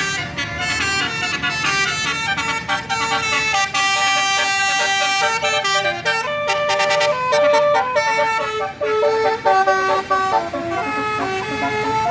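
A tour bus's telolet horn playing a quick tune, several horn tones stepping from note to note, with a burst of hiss about four seconds in.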